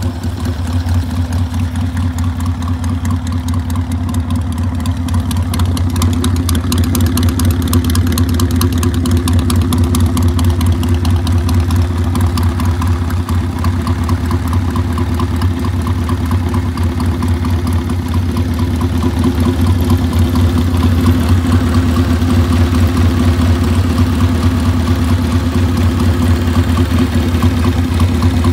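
1939 Triumph T100 (Tiger 100) 500cc parallel-twin engine running at a steady idle, with a fast, even exhaust beat.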